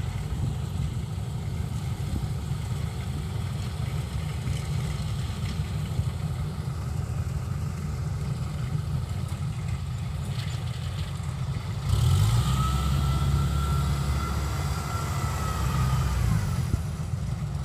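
Kubota DC93 combine harvester's diesel engine running steadily. About twelve seconds in, it gets louder, and a high whine rises and holds for about four seconds before dropping away.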